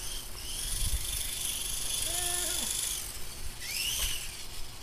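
RC helicopter's motor and rotors whining steadily in flight, the whine stopping about three seconds in. Near the end the motor whine briefly rises and then falls as the helicopter comes down on the grass.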